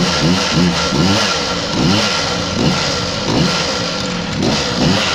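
Honda DIO water-cooled two-stroke scooter engine running, its speed rising and falling about every two-thirds of a second, freshly kick-started after standing unused for a year.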